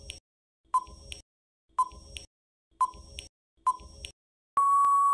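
Quiz countdown-timer sound effect: short ticking pings about once a second, then a long steady beep near the end signalling that time is up.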